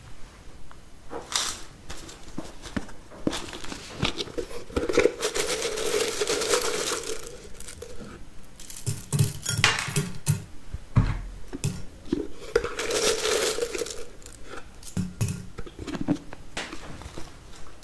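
A paper or foil seal being torn and crinkled as it is pulled from a tin canister, in two long rustling stretches. Between them come knocks and clinks of the tin and its lid.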